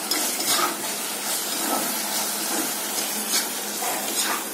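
Orange-peel, tamarind and jaggery pachadi sizzling in a kadai while a metal spoon stirs it, with several short scrapes of the spoon against the pan.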